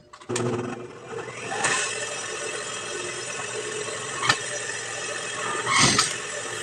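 Juki industrial sewing machine running, stitching a fabric waistband: a steady mechanical hum that starts suddenly just after the start, with a few sharp clicks.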